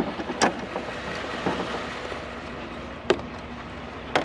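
A few short, sharp knocks and clatters of scrap items being handled and moved, over a steady low background hum.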